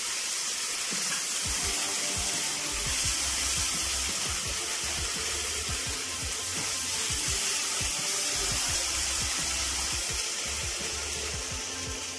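Ground chilli, garlic and ginger paste frying in oil in a non-stick pan, giving a steady sizzling hiss as it is stirred, with background music.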